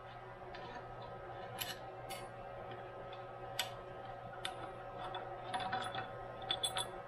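Small metallic clicks and clinks of a screwdriver backing out screws from a metal bracket on a mill saddle. A few single clicks come first, then a quicker run of clinks near the end, over a faint steady hum.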